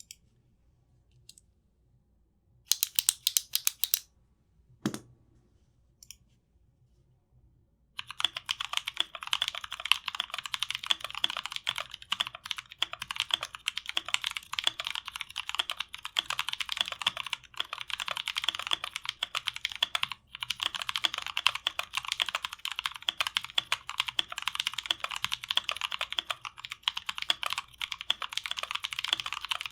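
Custom 60% winkeyless keyboard with lubed NovelKey Blueberry tactile switches being typed on. A short burst of keystrokes comes first, then a single deeper knock and a pause of a few seconds. From about eight seconds in, fast continuous typing follows. The switches carry an audible scratchiness that the lube has not removed.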